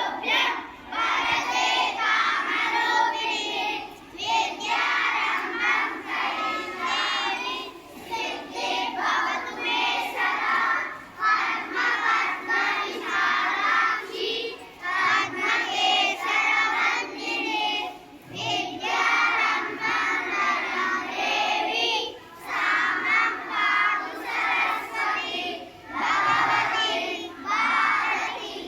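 A large group of children singing a prayer together in unison, phrase by phrase with short breaks between lines.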